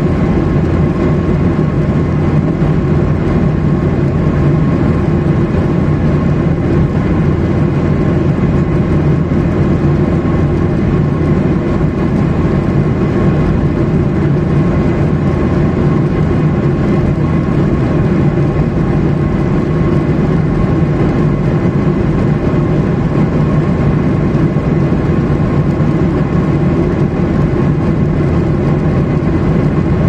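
Jet airliner in flight, heard inside the passenger cabin: a steady low rumble of engine and airflow noise with a faint even hum above it.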